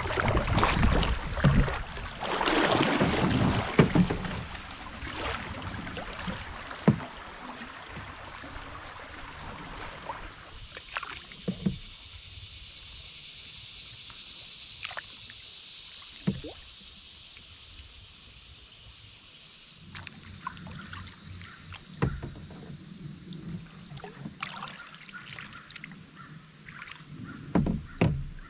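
A canoe paddled through a shallow riffle. Loud splashing water for the first few seconds, then a steady hiss of rushing water, with paddle strokes and occasional sharp knocks of the paddle against the canoe.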